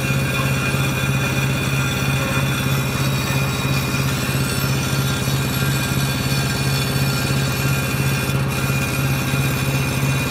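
Small diesel engine of a wood chipper running steadily, a constant low engine hum with no change in speed.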